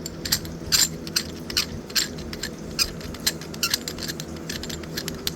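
Light, irregular metallic clicks and clinks of steel coilover parts being handled and knocked together, about two or three a second.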